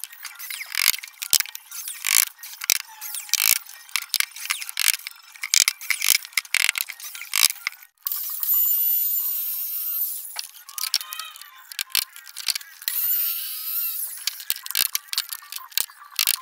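Cordless drill working plywood, with a dense run of sharp mechanical clicks and ratcheting. About halfway through, a steadier whirring power-tool noise with more clicks takes over.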